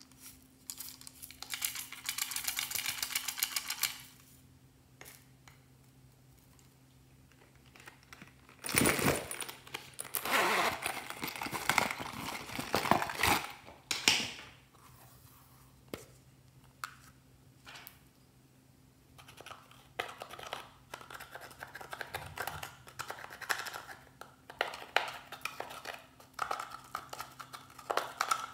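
Hands squishing and stretching slime. Bursts of wet crackling and clicking come and go, with the loudest stretch in the middle. Near the end there is a run of small quick clicks and pops.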